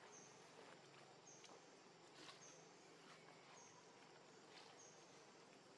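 Near silence: faint outdoor ambience with a short, high, slightly falling chirp that repeats about once a second, and a few soft clicks.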